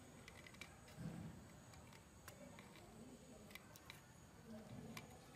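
Near silence, with a few faint, light clicks scattered through it.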